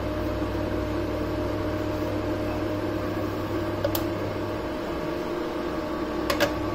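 Induction cooktop running with a steady fan hum and faint electrical whine. A single click comes about four seconds in as a button on a digital kitchen scale is pressed, and two light knocks follow near the end as a glass bowl is set down on the scale.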